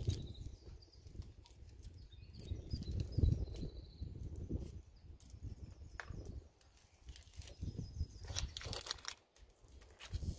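A knife cutting a cream-cheese-and-smoked-salmon bagel on a plastic plate, with a few sharp taps and scrapes about six and nine seconds in. Low, uneven rumbling of outdoor noise runs under it.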